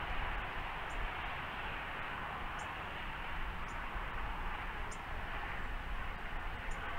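Five short, high, thin bird call notes, spaced a second or two apart, over a steady outdoor hiss with a low rumble.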